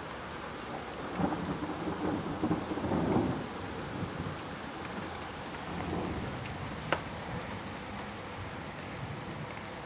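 Rolling thunder rumbles for about two seconds, starting about a second in, with a weaker swell later, over a steady hiss of light rain. There is one sharp tick a little past the middle.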